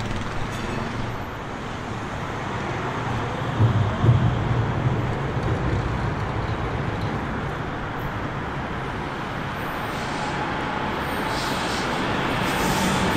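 Steady road-traffic and city background noise, with a brief louder low rumble about four seconds in. The level rises over the last few seconds as a train approaches.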